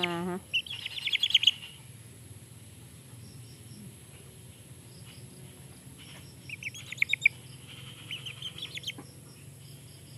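Young chicken peeping close by in two bursts of rapid, high-pitched chirps: one about half a second in, the other about six and a half seconds in.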